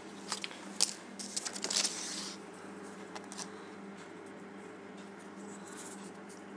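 Handling noise as a small metal token is turned between fingers close to the microphone: a quick cluster of small clicks and rustles in the first two seconds or so, a couple more faint clicks a second later, then only a faint steady hum.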